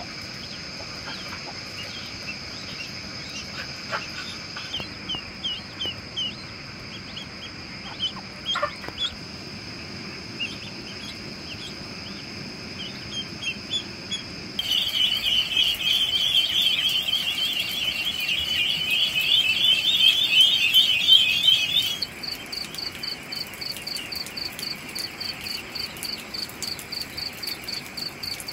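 Ducklings peeping in short, scattered calls over a steady high drone of insects. About halfway through, a dense, louder chorus of peeping takes over for several seconds. Then it gives way to night insects chirping in a fast, regular pulse.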